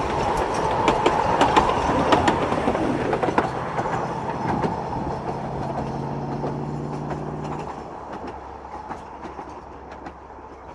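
Ffestiniog Railway narrow-gauge carriages rolling past, wheels clicking over rail joints in a clickety-clack. The sound fades steadily as the train moves away.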